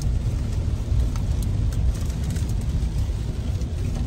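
Steady low rumble of a car driving on a rain-soaked road, heard from inside the cabin, with a few faint ticks.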